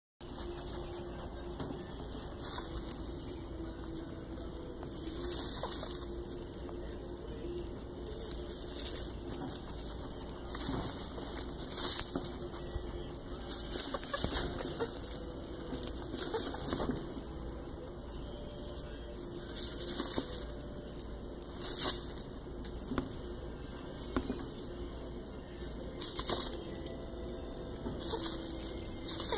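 Dry hay rustling and crackling in irregular bursts as the straw of a nest box is parted, with phone handling noise. Faint regular high pips, about one a second, run underneath.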